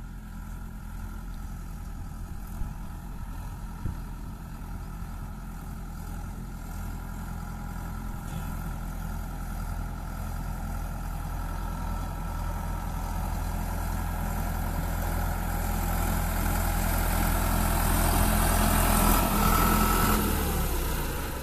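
Sonalika Tiger 60 hp tractor's diesel engine running steadily while the tractor drives closer, growing louder over the second half. Near the end the engine note drops.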